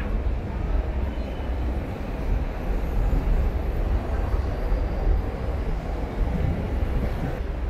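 Steady low rumble of a passing vehicle over general city street noise.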